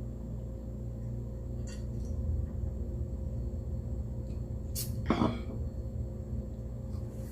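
Steady low room hum with a few faint clicks, and one short throat sound from the eater about five seconds in.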